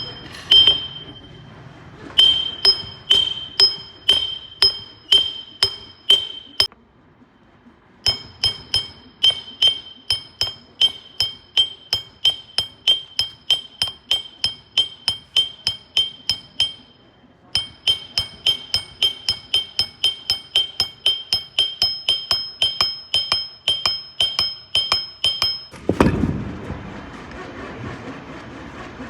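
Hammer striking a metal part, each blow ringing brightly, in three runs of rapid, evenly spaced blows that get faster each time. Near the end the hammering stops and a steady noise without strikes takes over.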